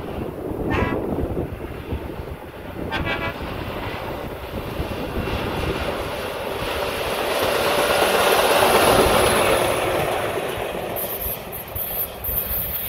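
Track maintenance vehicle passing on the rails, its rumble rising to a peak about eight seconds in and then fading away.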